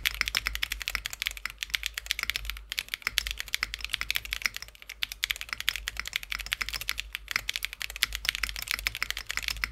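Mechanical keyboard with Kinetic Labs Husky linear switches (long-pole stem, PC top and bottom housings) in a Tofu60 2.0, typed on fast and without a break: a dense stream of clacky keystrokes.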